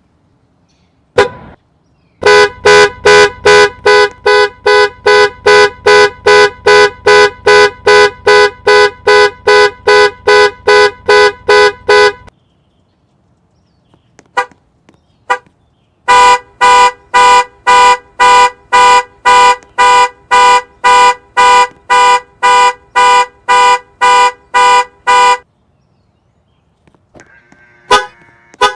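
Car alarm sounding through the car's horn: a single chirp, then rapid evenly spaced honks, about two and a half a second, for some ten seconds. After a pause and two short chirps, a second run of honks lasts about nine seconds, and a short warbling sound follows near the end.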